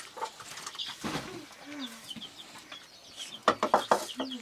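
Domestic chickens clucking, with short low calls and a quick run of high chirps near the end. About three and a half seconds in comes a burst of louder, sharper sounds.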